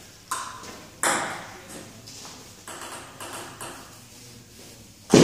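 Table tennis ball clicking: a few separate, sharp ticks of the ball against the table and bat, the loudest about a second in and another just before the end.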